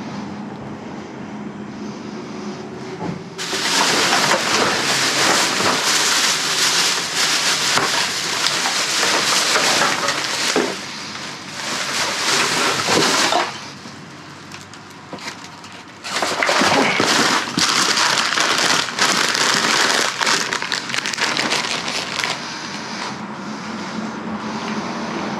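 Plastic bags and rubbish being rummaged through and shifted in a dumpster: a dense, loud crackling and crinkling that eases off for a couple of seconds about halfway through, then picks up again.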